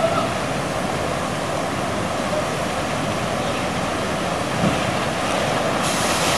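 Steady rushing and splashing of water running down waterslide flumes into their run-out lanes. About six seconds in, a brighter hiss joins as a rider slides out into a run-out lane.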